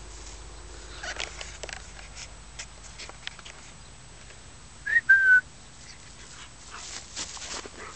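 A person's short two-note whistle about five seconds in, a quick rising note then a slightly lower held one, the loudest sound: a whistle calling the dog in. Around it, scattered soft rustles of long grass.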